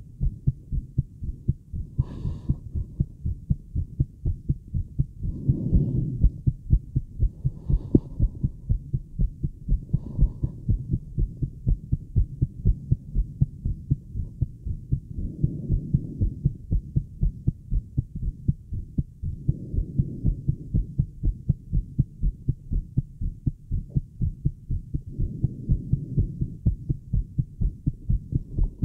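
A woman's fast heartbeat heard through a Littmann stethoscope with a microphone on the tubing: steady low lub-dub thumps at about two beats a second. A softer rushing sound swells behind the beats every few seconds.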